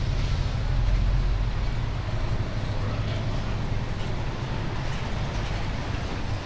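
Street traffic: a steady low engine rumble from vehicles on the adjacent road, swelling briefly about a second in.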